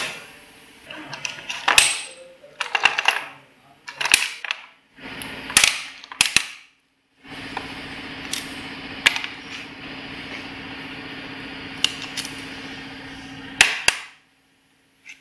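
Metal number plates clicking and clattering as they are handled at a number-plate embossing and foiling machine, a string of sharp clicks over several seconds. Then the machine runs with a steady hum for about seven seconds and stops after a sharp clack.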